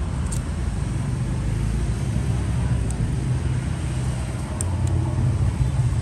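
Steady low rumble of background road traffic, with a few faint small clicks scattered through it.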